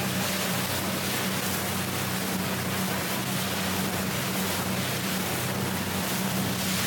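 Motor boat underway: a steady engine drone under a constant rush of wind and water.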